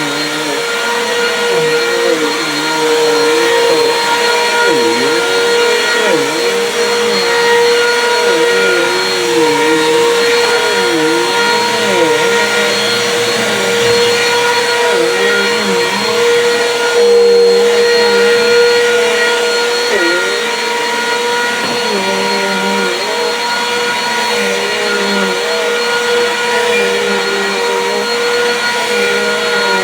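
Bissell PowerForce Compact Turbo upright vacuum cleaner running on carpet: a steady motor whine, with a lower tone that dips and recovers in pitch about once a second as the vacuum is pushed back and forth.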